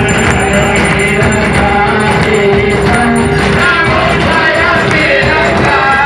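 Loud Hindu devotional aarti music: singing over steady percussion, with a held note through the first half.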